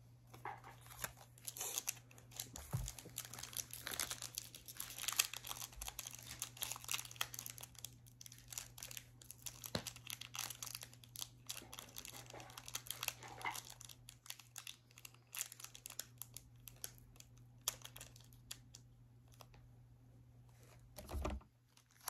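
Foil wrapper of a Pokémon trading-card booster pack crinkling and tearing as it is pulled open by hand, in irregular crackles that are busiest over the first two-thirds and sparser near the end.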